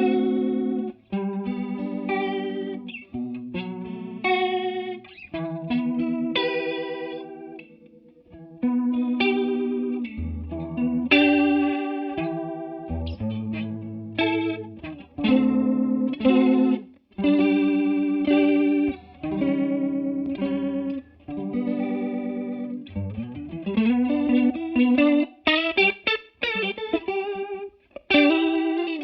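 Electric guitar played through a TC Electronic Corona Mini Chorus pedal: picked and strummed chords with a wavering chorus shimmer on every note, the chords changing every second or two and sliding in pitch about two-thirds of the way through.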